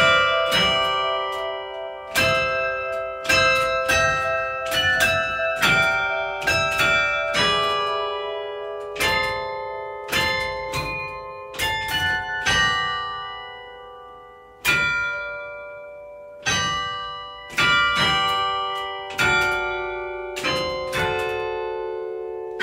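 Church bells played from a baton keyboard, striking a slow tune note by note; each bell rings on and fades under the next, with now and then two notes struck together.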